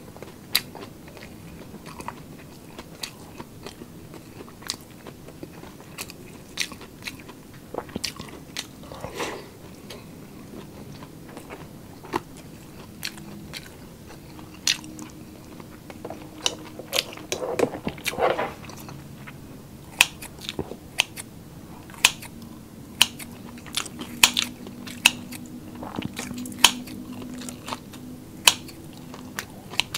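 A person chewing and biting food, with many short crunchy clicks that come more often and louder in the second half.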